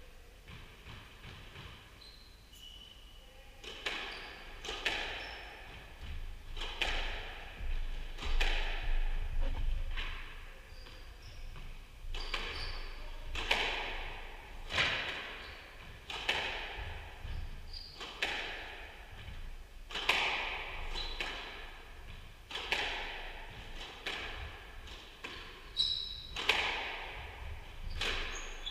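Squash rally: the ball struck by rackets and hitting the court walls about once a second, each hit ringing in the echoing court, with short shoe squeaks on the wooden floor between hits. The rally starts about four seconds in.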